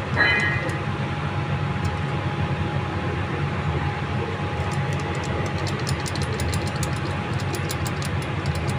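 Rapid light clicking and rattling from a worn car clutch disc being wobbled by hand, starting about halfway through: its torsional damper springs have come loose in their seats. A steady low rumble runs underneath.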